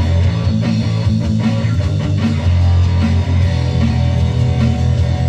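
Rock music with distorted electric guitar and heavy bass, playing steadily.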